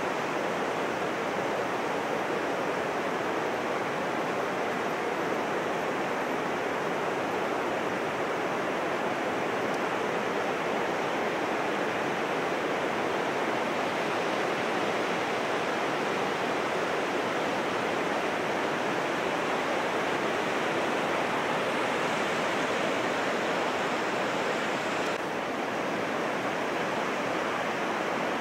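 Heavy surf breaking on a sandy beach: a continuous rushing wash of waves with no let-up, the rough sea left after a typhoon.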